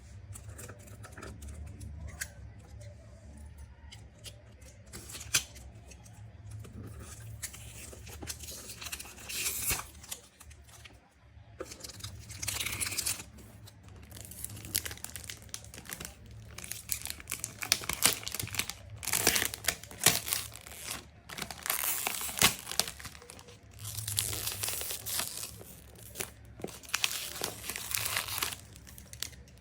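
Packaging of a perfume box being torn open and crinkled by hand: repeated short rips and rustles, coming more often and louder in the second half.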